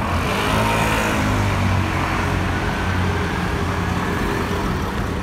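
Road traffic with a motor vehicle's engine running close by: a steady low hum over a wash of street noise.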